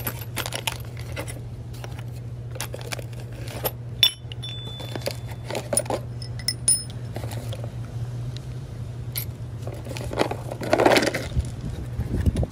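Hardware from a sway bar bushing kit handled and set down on concrete: plated metal brackets, bolts and steel sleeves clinking and ringing, with a sharp clink about four seconds in and more around six seconds. The cardboard box and packaging rustle near the end, over a steady low hum.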